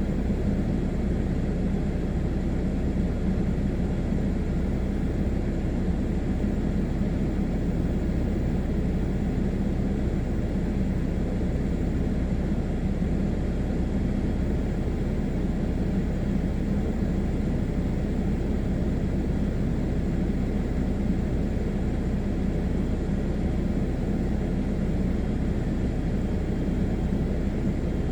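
A blower running steadily, blowing down through an outdoor wood boiler's chimney pipe to clear out soot and creosote that are choking the draft.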